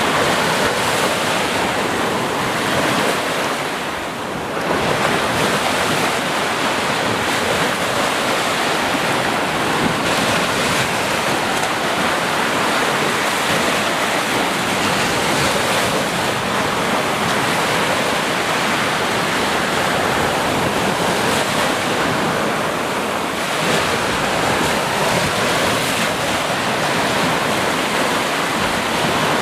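Ocean surf: waves breaking and washing in a continuous rush, with brief lulls about four seconds in and again near twenty-three seconds.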